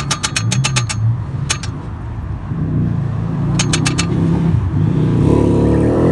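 A motor vehicle engine running, rising in pitch near the end as it revs up. Several quick runs of sharp clicks sound over it.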